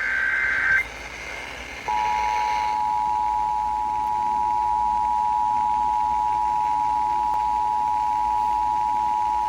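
The last second of an Emergency Alert System SAME header's digital data burst, then, about two seconds in, the two-tone EAS attention signal (853 and 960 Hz sounded together) starts and holds steady. It is the alert tone that announces an incoming emergency message, here a severe thunderstorm warning.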